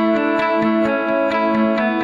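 Background music: guitar-led instrumental, a quieter passage without drums before the beat comes back in.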